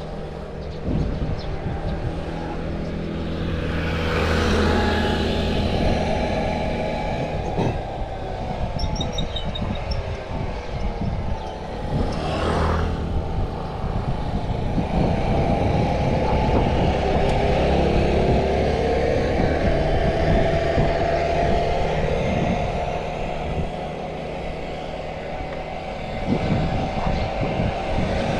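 Wind and road rush on a GoPro's microphone while riding a mountain bike. Motor vehicles go by a few times, their engine note dropping in pitch as they pass.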